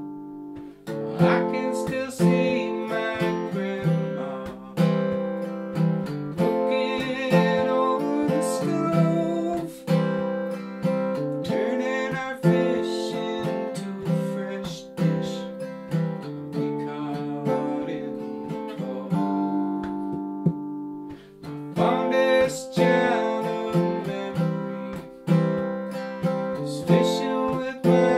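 Acoustic guitar strummed in a steady rhythm while a man sings a song over it.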